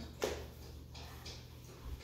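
A single light knock about a quarter second in, then quiet room tone with a low steady hum.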